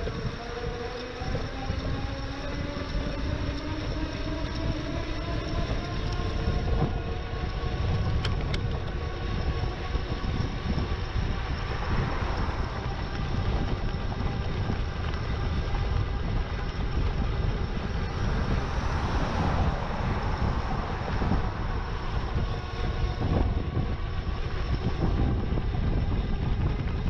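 Wind rushing over the microphone of a bike-mounted action camera while riding an e-bike, with a whine that rises in pitch over the first several seconds and then holds steady.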